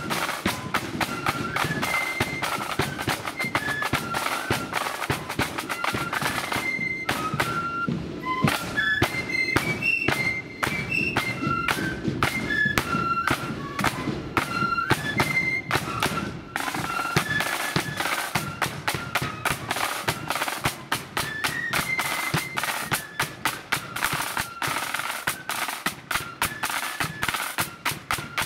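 Marching flute band playing a tune on the march: flutes carry the melody over rapid snare drumming and bass drum beats, in loyalist blood-and-thunder style.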